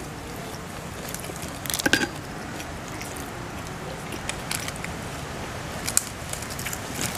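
Scattered light clicks and clinks of spoons against bowls and plates as people eat, over a steady background hiss.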